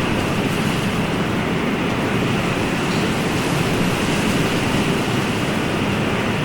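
Ocean surf: a steady, even wash of waves with no single breaker standing out.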